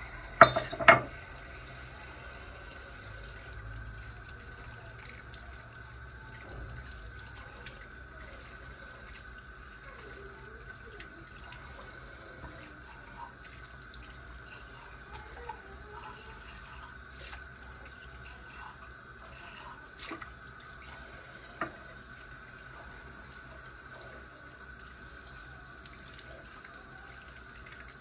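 Water running steadily from a kitchen tap into a sink, with two sharp knocks about half a second in and a few light clicks of things handled in the sink later on.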